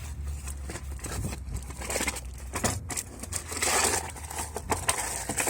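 Rustling, crinkling and scraping handling noise with scattered clicks, over a low steady hum that stops near the end.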